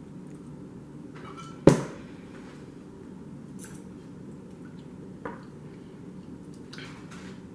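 A hot-sauce bottle set down on the table with one sharp knock about two seconds in, then a few faint slurps of noodles and scrapes of a fork in a plastic bowl, over a steady low hum.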